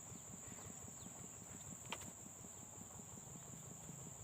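Steady high-pitched drone of an insect chorus, such as crickets, with a single faint click about two seconds in.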